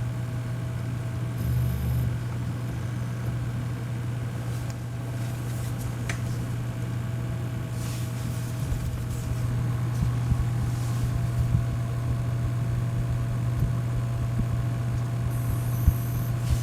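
Desktop PC running with its Western Digital 14 TB helium hard drive spinning: a steady low hum with a faint higher steady tone, and a few short clicks near the end.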